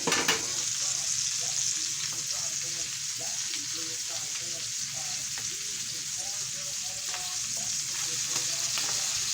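Wagyu ribeye steak sizzling in butter in a frying pan: a steady hiss with scattered spattering pops, one sharper pop right at the start.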